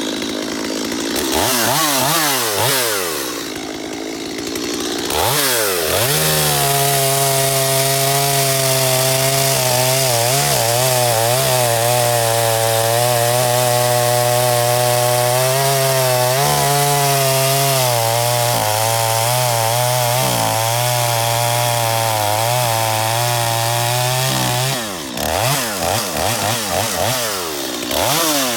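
Stihl MS250 two-stroke chainsaw revving up and down for a few seconds, then held at a steady full throttle for about twenty seconds while cutting wood. It drops back to short throttle blips near the end.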